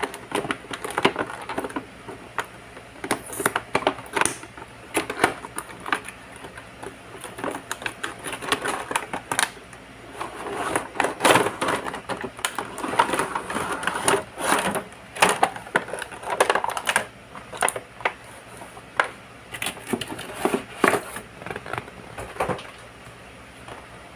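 Packaging of a toy being handled and opened: irregular crinkling and crackling with sharp plastic clicks and taps, busiest from about ten to seventeen seconds in.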